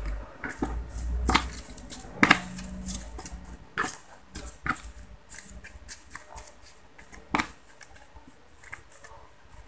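Plastic spatula scraping and clicking against a plastic bowl in irregular strokes while it stirs and presses softened, gooey styrofoam.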